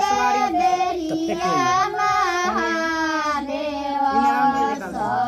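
A high-pitched voice singing a Bhojpuri song, drawing out long held notes that bend and glide between pitches.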